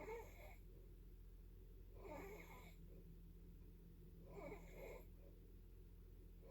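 Faint snoring: a raspy breath comes about every two seconds, three times in all.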